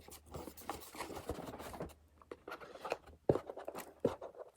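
Packing tape being scratched and peeled off a small cardboard box by hand, with rustling and a few sharp clicks, the loudest about three seconds in.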